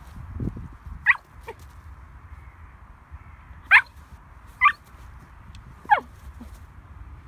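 Pomsky puppy (Pomeranian-husky mix) giving four short, high-pitched yipping barks, each dropping in pitch, spaced a second or two apart.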